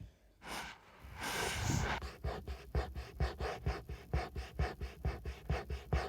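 A person breathing hard into the microphone: a couple of longer breaths, then quick, even panting at about four breaths a second.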